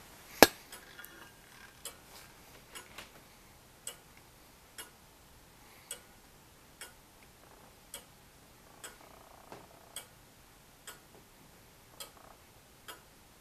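A 1690 William Clement longcase clock's 30-hour birdcage movement ticking through its anchor escapement, about one tick a second, with the beats alternating slightly short and long. One sharper, much louder click comes just after the start.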